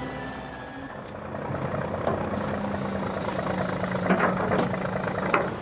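A fishing boat's net hauler winding in a net, with the boat's machinery running under it: a steady mechanical hum that drops in pitch about a second in, and a few knocks near the end.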